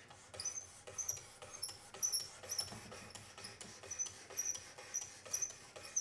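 The 600-grit sharpening stone of a Work Sharp Precision Adjust sharpener being stroked back and forth along a Gerber folding knife's blade. It rubs with a short, high, a little squeaky chirp on each stroke, two or three times a second.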